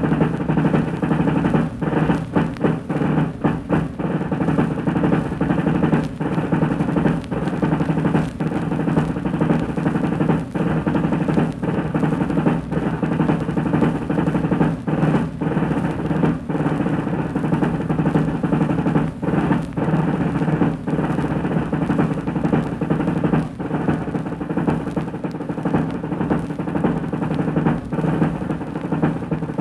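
Rudimental snare drum solo on an old record: dense, continuous rolls and strokes broken by many brief pauses between phrases.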